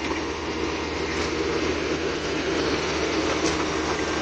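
Tracked excavator's diesel engine running steadily.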